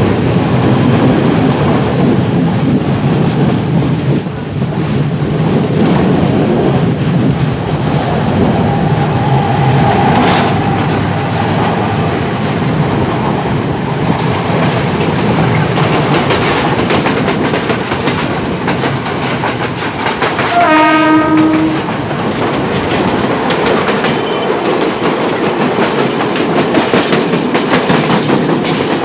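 Two passenger trains passing each other on parallel tracks, heard from an open carriage window: a continuous loud rumble of wheels running on the rails. A train horn sounds once for about a second near the end.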